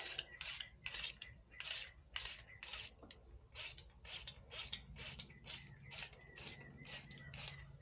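Socket ratchet with a 13 mm deep-well socket clicking as it backs a nut off a bolt. The clicks come about two a second at first, then a little faster after a short pause.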